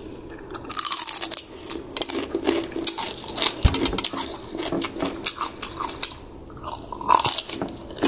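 A person biting into and chewing crispy fried chicken skin close to the mouth, with many irregular crunches throughout.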